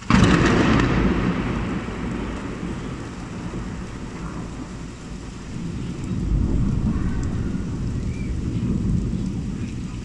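A sudden close thunderclap cracks in at the start and rolls off over a couple of seconds, then a second long, low rumble of thunder swells about six seconds in and fades, over steady rain.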